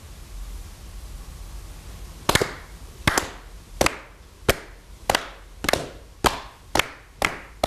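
Hand clapping: about ten single claps at a little over one a second, coming slightly faster, starting about two seconds in after faint room tone.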